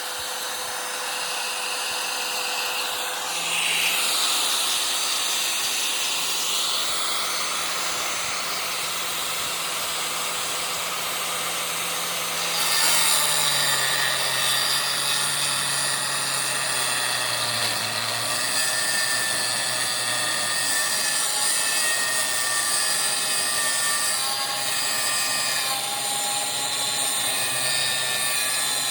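Angle grinder cutting through the metal housing of a window air-conditioner's compressor, a steady high-pitched squealing grind that gets louder about halfway through as the blade bites harder.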